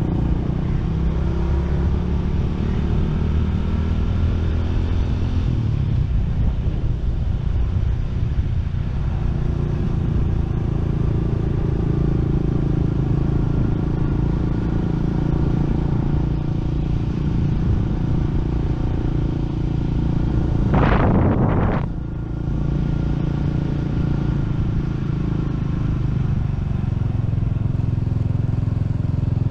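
Motorcycle engine running steadily while riding at low speed, with wind noise on the microphone. A brief loud rush of noise about two-thirds of the way through.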